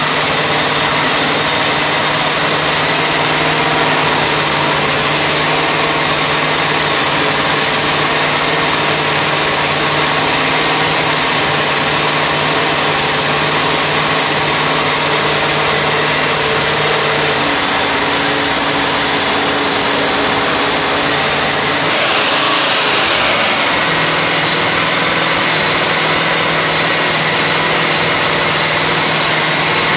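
Freshly rebuilt engine running steadily on its first runs after a complete rebuild. Its speed rises a little a bit past halfway, then settles back to the earlier steady note about three quarters of the way through.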